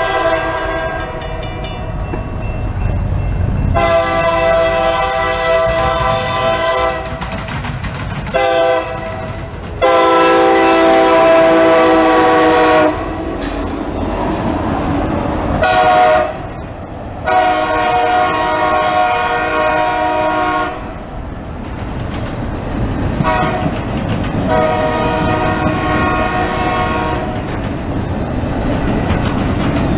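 CSX freight locomotive's air horn sounding a series of long and short blasts for a grade crossing, the loudest long blast about ten seconds in as the locomotives pass. Beneath it runs the rumble and clatter of the locomotives and intermodal container cars rolling over the rails.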